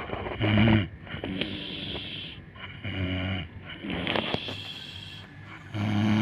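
An elderly woman snoring in deep sleep: three loud, rough snores about three seconds apart, with breathy hiss between them.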